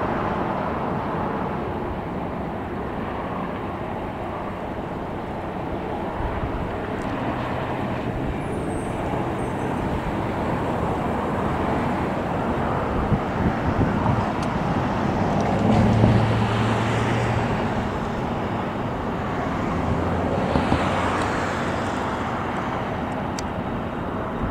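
Steady road traffic running past, with vehicle engines humming louder for a few seconds around the middle.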